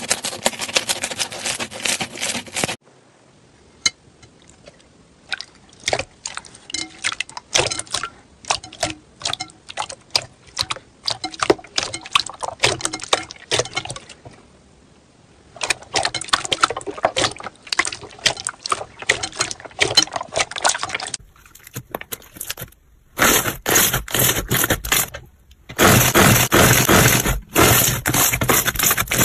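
Slime being squeezed, poked and stretched by hand, giving dense runs of crackling and popping clicks. The sound changes abruptly several times as one short slime clip gives way to the next, and the last few seconds are the loudest and densest crackling.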